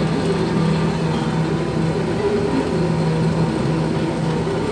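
Fishing vessel's engine and deck machinery running with a steady low drone while the net is hauled.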